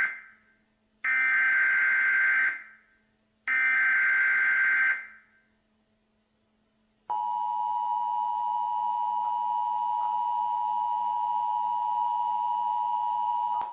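Emergency Alert System broadcast tones. First the end of one buzzing data burst, then two more bursts about a second and a half long each. After a short silence comes the steady two-tone attention signal for about six and a half seconds, which cuts off abruptly.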